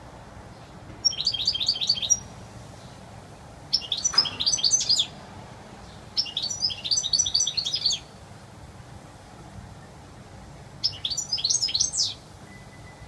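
European goldfinch singing in four bursts of rapid high notes, each burst a second or two long, with pauses between them.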